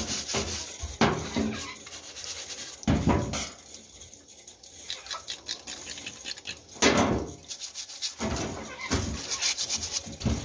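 Rough scrubbing of an armadillo's banded shell and skin, in repeated strokes, with tap water running over it.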